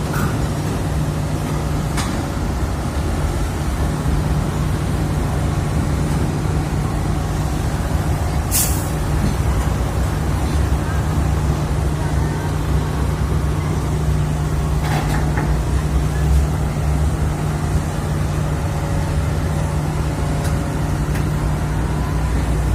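Heavy diesel engine running steadily with a constant low drone, and a short hiss of released air about eight and a half seconds in.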